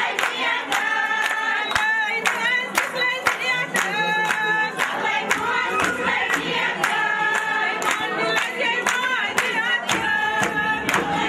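A group of voices singing a Kashmiri mehendiraat wedding song, kept to a steady beat of sharp strikes about two to three times a second.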